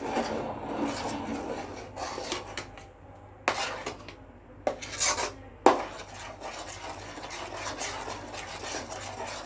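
A ladle scraping and stirring almond-cashew paste in milk around a kadai, kept going constantly so the halwa does not stick to the bottom. A few sharper knocks against the pan come around the middle.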